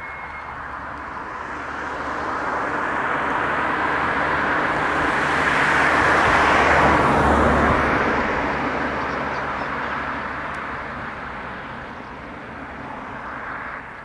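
A motor vehicle passing by: a steady rushing noise that swells to a peak about halfway through, then fades away.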